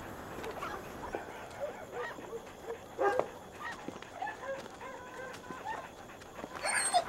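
Farmyard animal calls: scattered short clucking calls of hens together with a dog, with one louder call just before the end.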